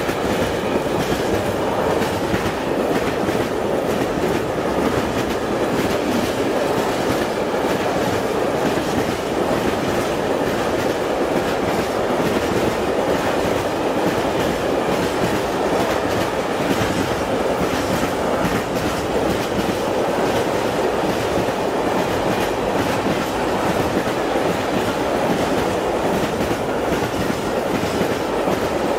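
Long freight train of tank wagons rolling past at close range, its electric locomotive passing at the very start: a steady rumble of steel wheels on rail with repeated clickety-clack of the wheels over rail joints.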